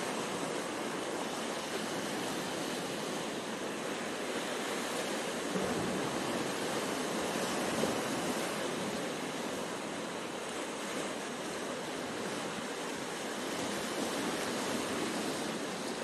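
Sea surf breaking and washing over rocks close to shore: a steady rush of water, swelling a little about six to eight seconds in.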